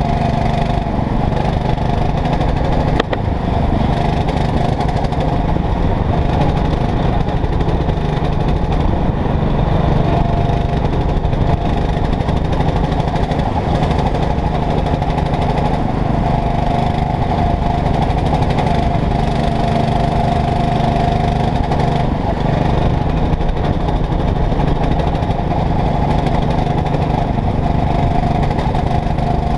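Go-kart engine running hard at racing speed, heard on board the kart, with its pitch shifting slightly through the corners. A brief click sounds about three seconds in.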